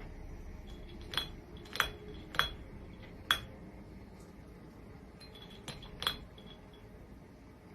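Light clinks with a short ring, like a hard object tapping glass or a dish. Four come in quick succession, then two more after a pause.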